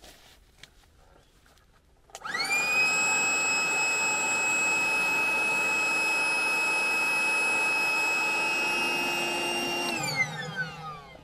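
Electric air inflator filling an air mattress. Its motor spins up with a quickly rising whine about two seconds in, runs steadily, then stops near the end and winds down with a falling pitch as the mattress is full.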